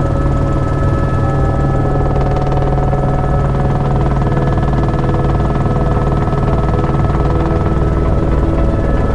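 Helicopter engine and rotor noise heard from inside the cabin in flight: a loud, steady drone with a fast low beat and a few steady higher tones over it.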